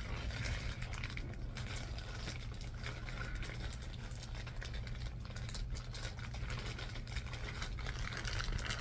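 Light rustling and handling of a mail-order package as its contents are felt through, with scattered small ticks, over a steady low hum.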